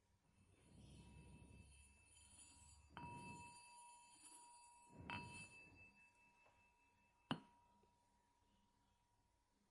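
A bell struck faintly twice, about three and five seconds in, each strike ringing on with a clear high tone; the ringing cuts off abruptly a little past seven seconds, leaving near silence.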